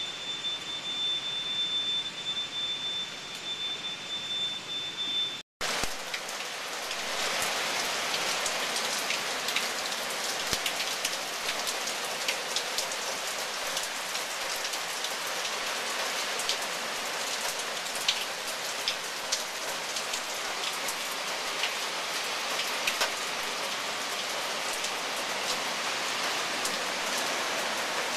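Steady rain falling on surfaces, a dense hiss with many scattered drop hits, beginning about six seconds in. For the first five seconds before it, a steady high-pitched tone sounds over faint background noise.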